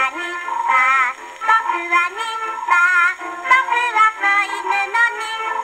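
A 78 rpm shellac record played on a Victrola VV-50 acoustic gramophone through a soft-tone steel needle: singing with wavering pitch over instrumental accompaniment. The sound is thin and carries no bass.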